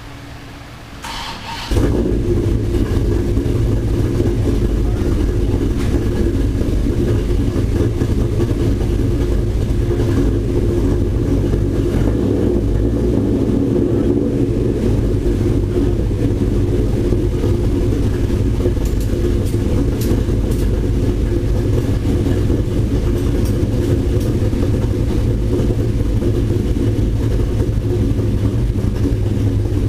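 The Ram SRT-10's 8.3-litre V10 running at a steady idle on the dyno, coming in suddenly about two seconds in and holding an even, unchanging pitch with no revving.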